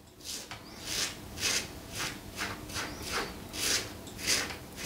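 Alpha Outlaw Evolution double-edge safety razor scraping stubble off the neck in short strokes, about two a second.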